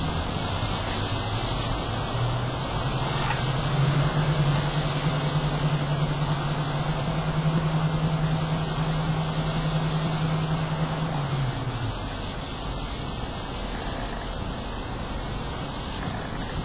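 Tractor-pulling tractor engine at full power during a pull. Its pitch climbs over the first few seconds, holds steady, then drops away and stops about twelve seconds in, over a steady hiss.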